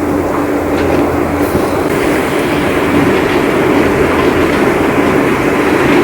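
Heavy rain pouring steadily, a loud, dense, even rush of noise.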